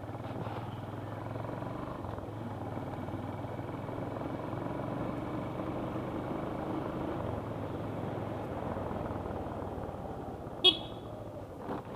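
Motorcycle engine running steadily while riding over a rough road, with a short horn toot near the end.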